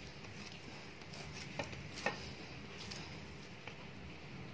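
Low, steady room hum with a few faint, light clicks and knocks from kitchenware being handled.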